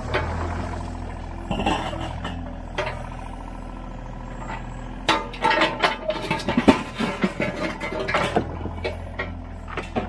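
Mini excavator's diesel engine running steadily while its bucket digs, with scraping, clinks and knocks of the bucket teeth against broken concrete and rubble, busier from about halfway through.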